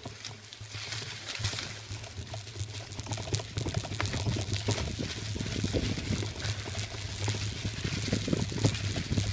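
Mountain bike rolling fast over a trail covered in dry fallen leaves: a continuous crackle of tyres through the leaves with frequent small clicks and rattles from the bike over bumps, over a steady low rumble.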